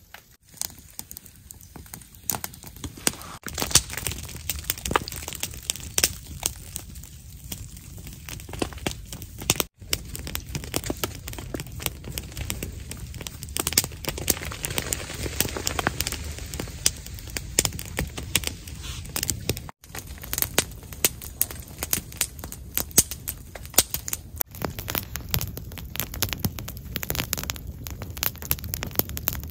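Wood campfire crackling, with frequent irregular sharp pops over a steady low rush.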